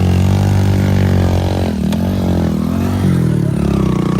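Heavy diesel engine running hard under load as the machine is driven up a slope. Its pitch sags about halfway through, then wavers and picks up again.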